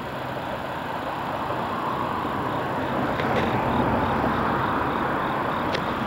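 Electric train running past on the line, a steady rumble that grows louder from about three seconds in. A level-crossing alarm rings faintly in quick, even beeps, about three a second, with a couple of sharp clicks near the end.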